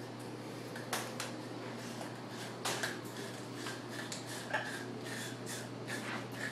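Hyacinth macaws cracking and crunching cuttlebone with their beaks: a scattering of sharp, separate cracks, loudest around a second in and near the middle.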